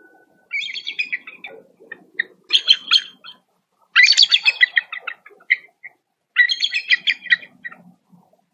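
Bald eagles calling: four bouts of rapid, high chattering calls, the third the loudest. The female is greeting her mate as he arrives at the nest.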